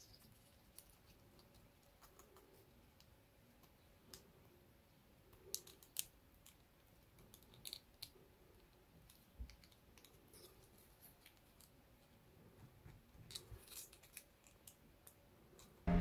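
Faint, scattered clicks and taps of thin wooden model-kit pieces of a ROKR bulldozer being handled and pressed together by hand, with a busier run of clicks near the end. Music starts abruptly at the very end.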